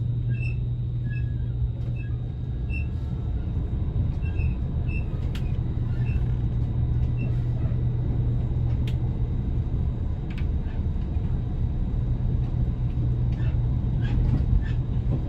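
Limited-express train running, heard from inside the carriage: a steady low hum and rumble, with scattered sharp clicks. Over the first several seconds a faint high ding repeats about twice a second and fades away.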